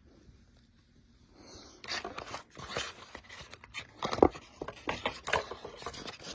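Packaging being handled by hand during an unboxing: irregular rustling and scraping with sharp clicks, starting after a quiet second or two, the loudest click about four seconds in.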